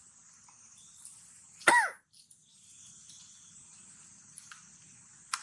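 A baby monkey gives one short, loud cry about a second and a half in: a pitched squeal that rises and falls. A few faint clicks follow near the end.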